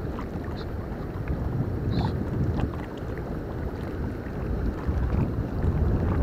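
Wind buffeting the microphone: a steady low rumble without any engine tone, with a few faint short chirps above it.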